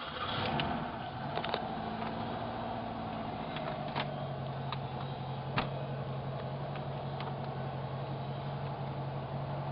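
A vehicle engine starting up and, within a few seconds, settling into a steady idle. A few sharp clicks or knocks sound over it, the loudest about four and five and a half seconds in.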